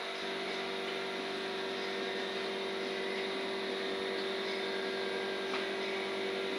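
A 676 CNC milling machine running with a steady mechanical hum and drone that holds one even pitch.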